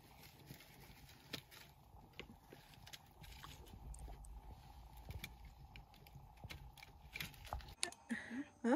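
Wood cooking fire crackling faintly, with scattered small pops and clicks over a low rumble; a few louder knocks come near the end.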